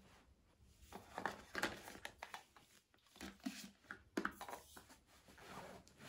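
Handling noise from packing a suitcase: fabric rustling and plastic toiletry bottles lightly knocking as they are slid into a mesh pocket, in short irregular bursts.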